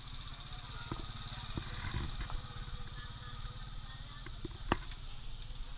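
A motorcycle engine running low, under a steady high-pitched buzz, with a sharp click a little before the end.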